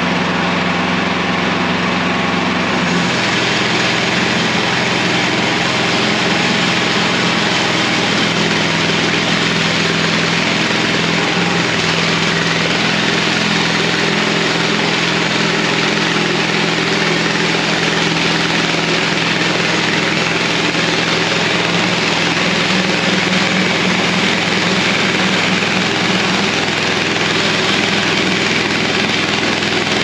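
Gasoline engine of a MechMaxx SM-26 portable band sawmill running steadily at working throttle as the band blade cuts along a log. The engine note changes about three seconds in.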